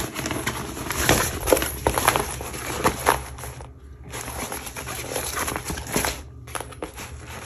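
Packaging rustling and crinkling as items are handled, busy and irregular for the first few seconds, then sparser.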